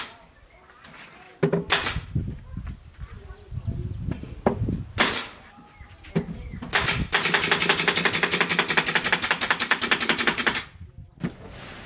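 Pneumatic nail gun firing into an MDF speaker box: a couple of separate shots, each with a short puff of air, then a fast, even rattle of shots lasting nearly four seconds that stops abruptly.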